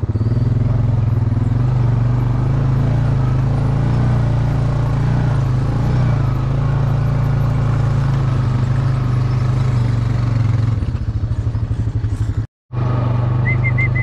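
Quad bike engine running steadily at low, even revs. It drops to silence for a split second near the end, then a short warbling whistle follows.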